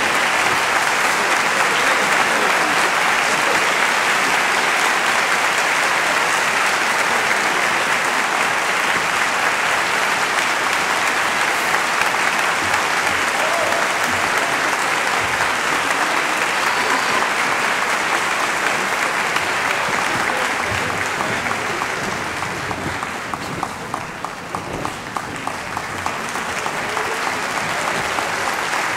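Large theatre audience applauding an orchestra, thinning to scattered single claps a little over three-quarters of the way through, then building up again.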